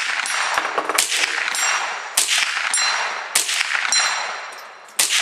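A steady string of five gunshots, about one a second, each followed by a long fading echo and a thin ringing ping from a hit on steel targets.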